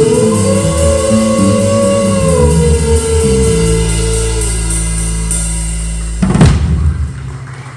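Live rock band holding the final chord of a song, with a sustained low bass note and a note that bends up and back down above it. About six and a half seconds in, one loud drum and cymbal hit ends the song, and it rings out and fades.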